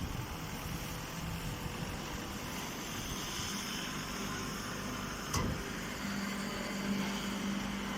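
Hydraulic baling press running: a steady machine hum with a single sharp click about five seconds in, and a steadier low hum tone setting in about a second later.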